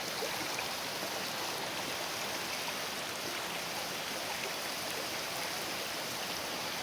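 Creek water rippling and rushing steadily.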